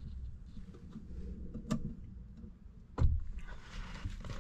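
A light knock about a second and a half in and a louder thump about three seconds in, over a low rumble of handling noise.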